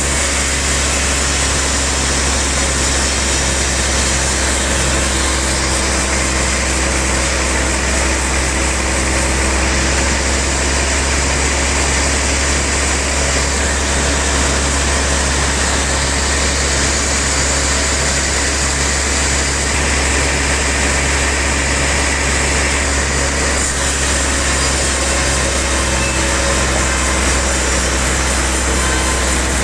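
Sawmill log bandsaw machinery running steadily, a constant low drone with a hiss over it.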